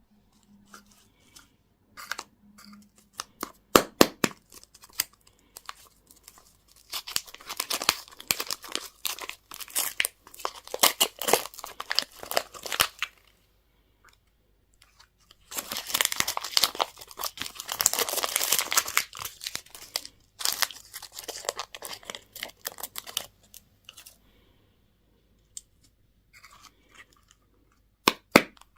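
Candy or surprise-toy packaging being torn open and crinkled by hand. A few sharp clicks come first, then two long stretches of dense crackling and tearing.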